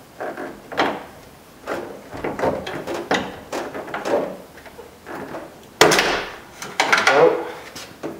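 Black plastic side mirror of a 1999 Toyota 4Runner creaking, scraping and knocking against the door as it is worked back and forth and pulled off its assembly-line clip. The louder scrapes about six and seven seconds in are the mirror coming free.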